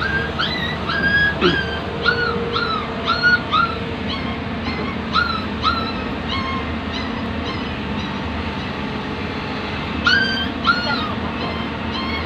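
Short, high whining cries from an animal, repeated about two a second for the first six seconds, then a pause, then a few more near the end. Under them runs a steady low engine drone.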